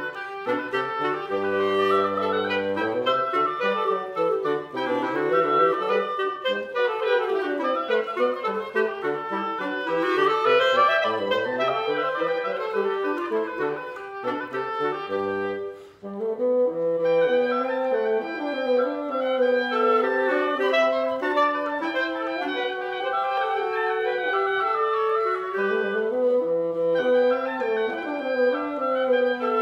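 Woodwind trio of clarinet and bassoon playing a classical chamber piece, the clarinets carrying moving lines over the bassoon's low notes. About halfway through the playing briefly stops, then the music starts again.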